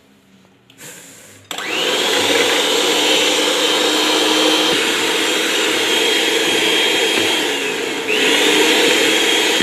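Electric hand mixer switched on about a second and a half in, its motor whine rising as it gets up to speed, then running steadily with its beaters whisking raw eggs in a bowl. Near the end the pitch sags briefly and climbs back up.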